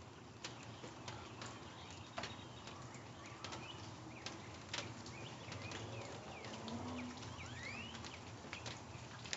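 Quiet wet-yard ambience: a faint steady hiss with scattered drips and small splashes of water, and a brief low hum about seven seconds in.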